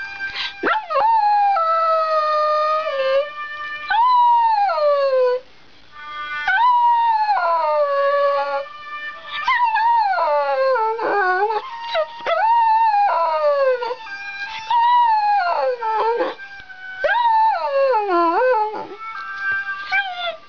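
Shetland sheepdog howling, or "singing", hard: about eight long howls in a row, each starting high and sliding down in pitch, with short breaths between them.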